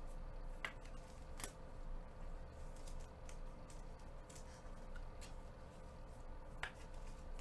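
Baseball trading cards being handled and set down on a table: a handful of faint, sharp clicks and taps spread over the seconds, over a steady faint hum.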